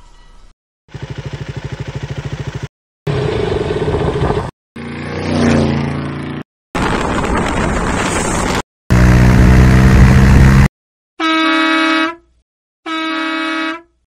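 A quick run of short road-traffic clips, each cut off by a moment of silence: vehicle engines running and passing, then a loud, low horn blast about nine seconds in, the loudest part, and two shorter, higher horn toots near the end.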